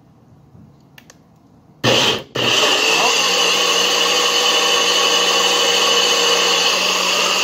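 Kitchen blender switched on about two seconds in: a brief burst, a momentary stop, then running steadily with a high whine as it blends a yogurt-and-strawberry-jam smoothie.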